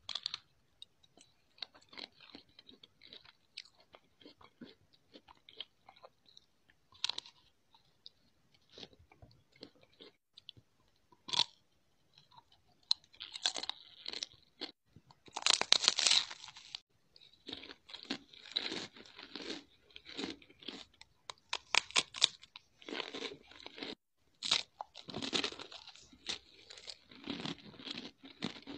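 Close-miked eating of a chocolate-coated ice cream bar: the hard chocolate shell crackling and crunching as it is bitten and chewed, with wet mouth and lip sounds. Sparse, quiet clicks for roughly the first twelve seconds, then denser, louder crunching.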